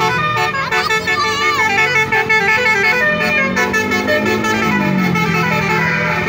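Basuri telolet horn, a set of multi-tone musical air horns, playing a tune of stepped notes.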